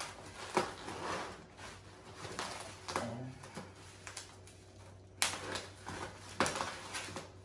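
Scissors cutting through packing tape and bubble wrap on a cardboard box, with irregular plastic crinkling and clicks and two sharper clicks about five and six and a half seconds in.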